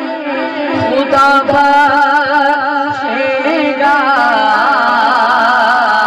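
A man's voice singing a long, ornamented melodic passage of an Urdu naat into a microphone, the pitch wavering and sliding in sustained lines without clear words.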